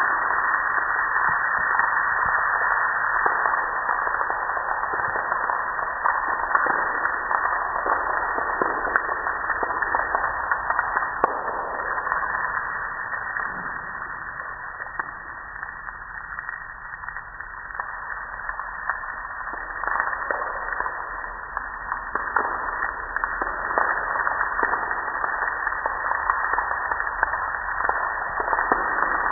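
Garden hose spraying water against a garage door and its header, with water splashing and dripping onto the door panels: a steady hiss that drops off for several seconds around the middle, then comes back.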